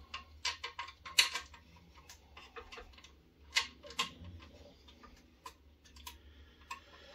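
Small screwdriver clicking and ticking against screws and aluminum frame plates as the screws are tightened, in irregular sharp metal clicks with a few louder ones about a second in and around four seconds.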